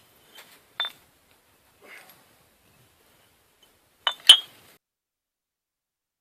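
Glass clinking as buried bottles are struck while raking through an old bottle dump: a few sharp clinks with a bright ring, the loudest two close together about four seconds in.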